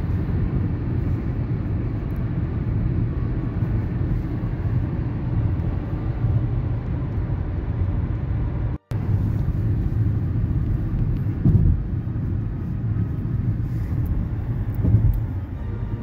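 Steady low road and tyre rumble inside a car's cabin driving on a freeway, with two brief louder swells near the end. The sound cuts out for an instant about halfway.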